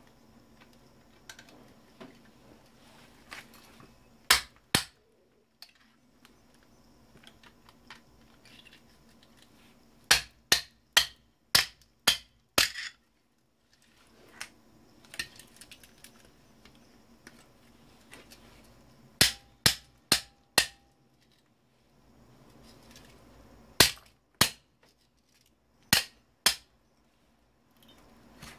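Sharp clicking strikes of a hand tool on the parts of an old Samsung monitor being dismantled for scrap. They come in short clusters of two to six, a few seconds apart.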